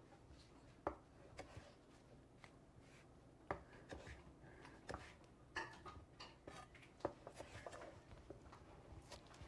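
Kitchen knife slicing green onions on a plastic cutting board: soft, irregular knocks of the blade on the board, busier in the second half.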